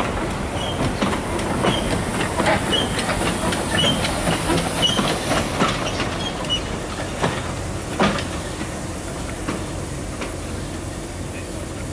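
Small steam tank locomotive A 64 and its carriage rolling slowly past, with wheels knocking over the rail joints in a slow rhythm and a hiss of steam. A sharper knock comes about eight seconds in, and the knocks thin out after it as the train moves away.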